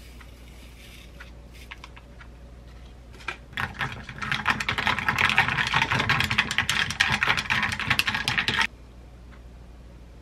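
Ice cubes clinking and rattling against a drinking glass as powdered kombucha is stirred quickly into iced water, about five seconds of fast clicking that stops abruptly. A few light ticks come before it.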